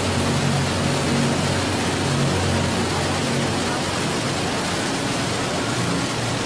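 Iguazú Falls rushing: a steady, even noise of a great mass of falling water with no breaks.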